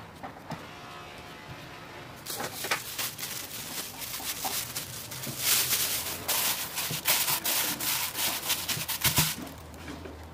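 Thin clear plastic sheet crinkling and rustling as it is handled and stretched over a bowl of dough. It starts about two seconds in, comes as a run of sharp crackles, and stops shortly before the end.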